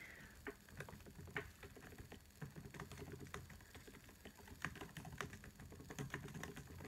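Faint typing on a laptop keyboard: irregular, quick key clicks as a sentence is typed.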